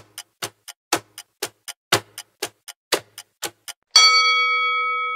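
Countdown-timer clock ticking about four times a second, with a stronger tick each second. About four seconds in, a bright chime rings out for the answer reveal and fades slowly.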